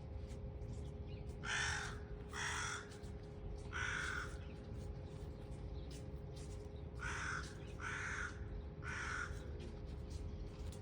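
Crow cawing: six harsh caws in two runs of three, the second run starting about halfway through, over a steady low rumble.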